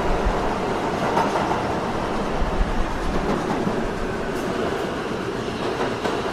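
Subway train running, a steady rumble of the wheels on the rails with occasional faint clacks.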